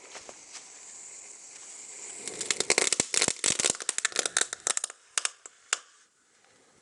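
A burning pile of safety matches mixed with pyrotechnic composition. It hisses at first, then about two seconds in it breaks into a rapid run of sharp crackling pops, which thins to a few last pops and dies away about a second before the end.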